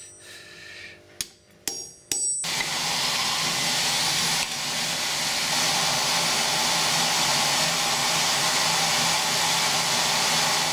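Three hammer blows ringing off steel in the first two seconds, then a loud, steady rushing hiss starts suddenly about two and a half seconds in and keeps going.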